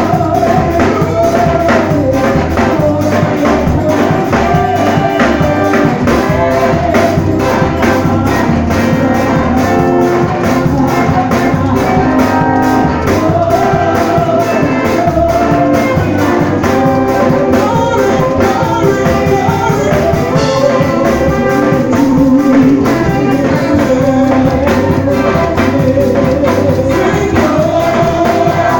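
Live gospel praise music: a band of drum kit, keyboard and guitar playing with voices singing a melody over a steady beat.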